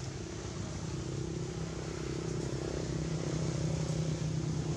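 A steady low engine drone that slowly grows louder.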